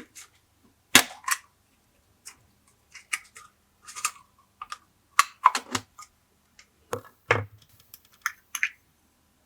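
Glossy slime being squished and worked by hand, making irregular sticky clicks and pops. The loudest come about a second in and again around five and seven seconds.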